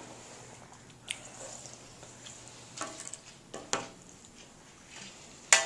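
A spoon clinking against a soup bowl a few times, with short quiet gaps between.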